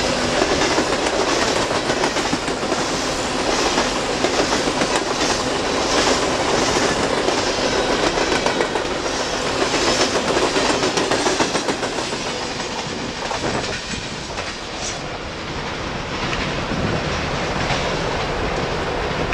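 Norfolk Southern freight train's cars rolling past close by: steel wheels clacking over the rail joints in a steady rhythm over a continuous rolling rumble. The noise eases somewhat about two-thirds of the way through.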